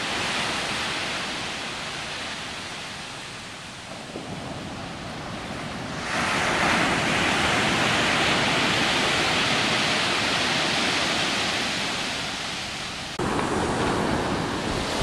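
Ocean surf washing onto a sandy beach: a steady rush of breaking waves, with wind on the microphone. It grows louder about six seconds in and shifts abruptly a couple of seconds before the end.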